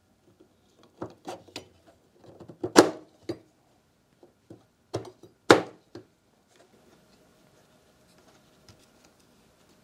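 Hard plastic and metal 3D-printer parts being handled and knocked against the frame: a run of irregular clicks and knocks, with two louder clunks about three and five and a half seconds in. A few faint ticks follow near the end as a hex key works a screw.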